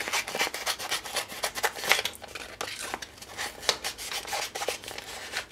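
Scissors snipping through a sheet of adhesive craft vinyl: a rapid, uneven run of small sharp snips as the sheet is turned in the hand.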